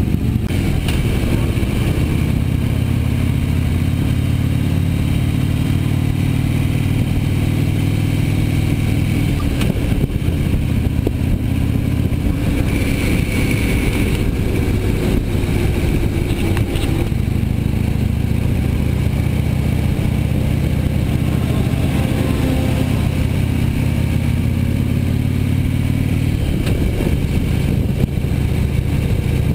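Harley-Davidson motorcycle's V-twin engine running while riding, its pitch rising several times as it accelerates through the gears.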